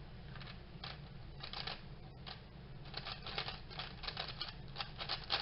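Fast plastic clicking of a WeiLong V1 3x3 speedcube being turned during a speed solve. The clicks begin about half a second in and become a rapid, dense clatter from about three seconds on.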